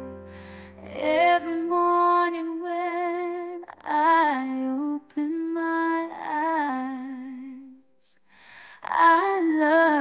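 A female voice singing a slow pop ballad melody over light backing, holding notes with vibrato. The voice stops briefly about eight seconds in.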